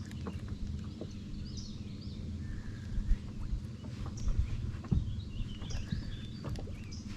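Wind rumbling on the microphone, with small birds chirping repeatedly throughout and a few dull knocks around the middle.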